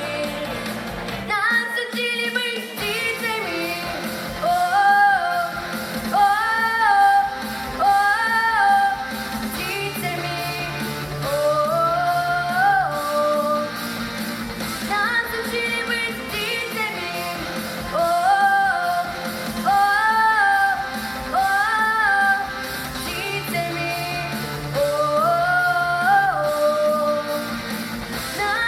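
A girl's or woman's voice singing a melody of held notes, some sliding up into pitch, over a backing track with a steady bass line.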